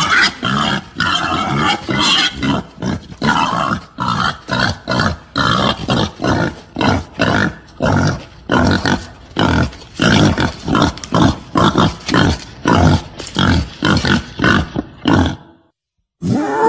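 Wild boar grunting: a long run of short grunts, about three a second, that breaks off shortly before the end. It is a recorded boar call used as a hunting lure.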